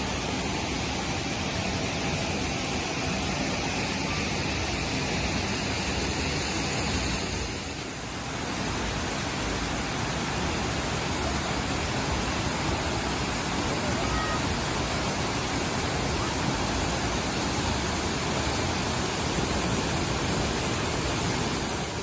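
Shifen Waterfall's broad curtain of water pouring over its rock ledge into the pool: a steady loud rush of falling water, dipping briefly about eight seconds in.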